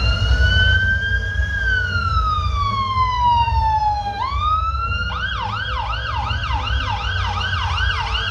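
Emergency-vehicle siren sound effect: a slow wail that rises, then falls over about four seconds, then switches to a fast yelp of about three sweeps a second.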